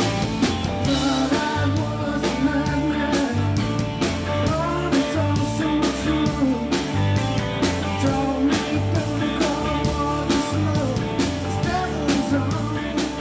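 Rock-style background music with drums, guitar, bass and singing, a steady beat throughout.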